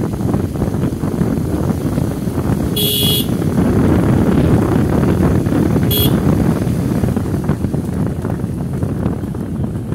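Wind buffeting the microphone over a steady rumble, with two short high-pitched toots about three seconds apart, the first longer than the second.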